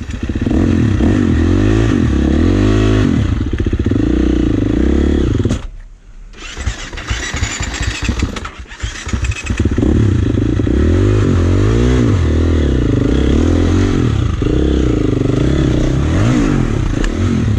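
Dirt bike engine revving up and down hard, the throttle blipped again and again as the bike works over rocks, with two brief dips where the engine nearly drops out, about a third and half of the way through.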